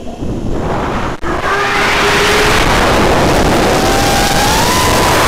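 Brushless motors and propellers of an Armattan F1-4B FPV racing quadcopter. The motors start low, throttle up about a second in, and then run hard as a whine over a loud rushing noise, the whine slowly rising in pitch toward the end.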